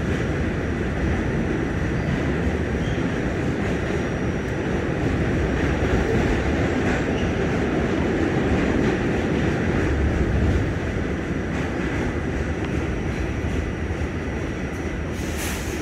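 Ride noise inside an R46 New York City subway car as it runs along the track: a steady rumble of wheels on the rails with a faint steady whine, and a brief hiss near the end.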